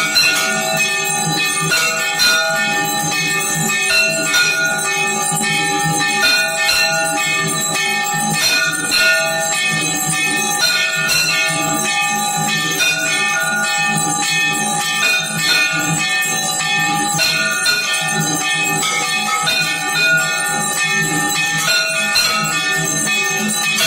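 Hindu temple bells ringing without pause during an aarti, struck over and over so that the ringing never dies away.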